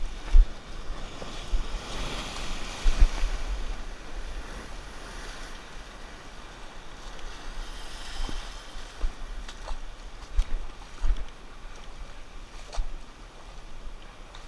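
Surf washing over a shallow rock reef and around the wader's feet, swelling a couple of seconds in, with wind buffeting the microphone.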